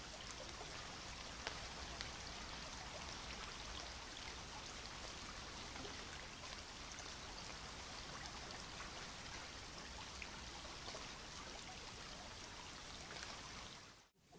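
Faint steady hiss with a few tiny ticks scattered through it. It cuts out abruptly near the end.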